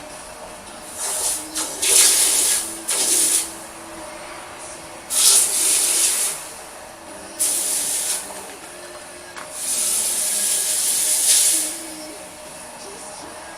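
Steel blade being ground on a motor-driven grinding stone wheel: about six hissing passes, each from half a second to two seconds long, over the steady hum of the machine.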